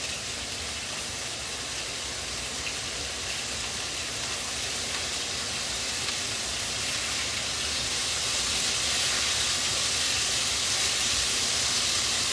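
Burgers frying in a pan on the stove: a steady sizzle that grows gradually louder.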